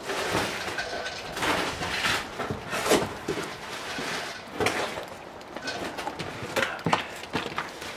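Cardboard and plastic packaging rustling and crinkling, with scattered knocks and scrapes, as a boxed turbocharger is dug out of a large shipping carton and lifted out. The sounds are irregular, with the sharpest knocks about three seconds in and again near the end.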